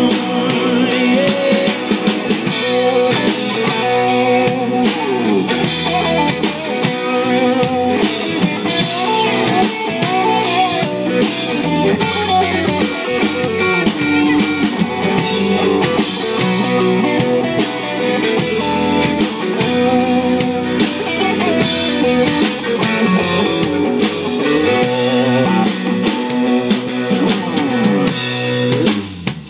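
A band playing rock music with electric guitar and drum kit, loud and steady, breaking off right at the end.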